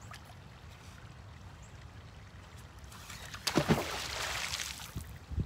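A magnet-fishing magnet on its rope splashes into shallow ditch water about three and a half seconds in, a sudden splash lasting about a second and a half. A steady low rumble runs underneath, and a few low thumps come near the end.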